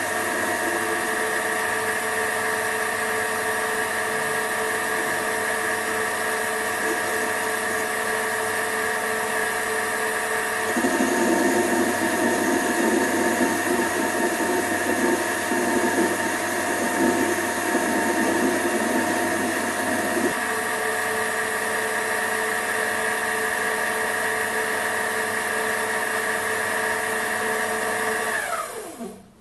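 Sumore SP2102 7x12 mini lathe running, a steady motor and gear whine. From about 11 to 20 seconds a louder, rougher cutting noise joins as the tool takes a facing cut with the carriage locked by the engaged half nuts. Near the end the lathe is switched off and the whine falls away.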